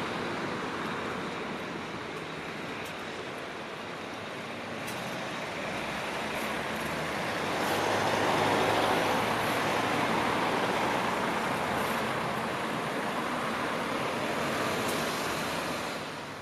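A bus driving up close and pulling in, its engine and tyre noise swelling about halfway through, then fading out at the end.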